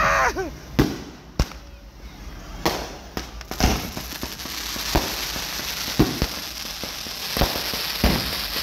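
Fireworks going off: a string of separate sharp bangs, and from about a third of the way in a ground fountain firework spraying sparks with a steady hiss that grows louder.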